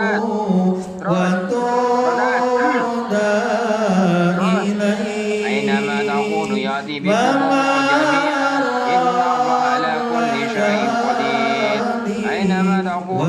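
Quranic verses chanted in a melodic, drawn-out ruqyah recitation: long held notes that glide up and down, broken by a couple of short pauses.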